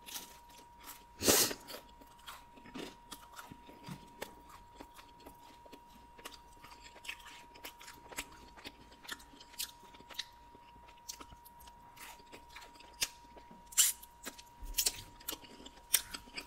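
Close-miked chewing and crunching of crisp store-bought pizza, with a loud crunching bite about a second in and another near the end.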